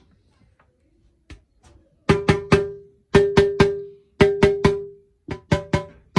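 Marching snare drum's new head tapped in quick groups of three strokes, each stroke ringing with a clear pitch, after a few light taps. This is the head being checked at each lug to match the tension, with the snare wires not yet on.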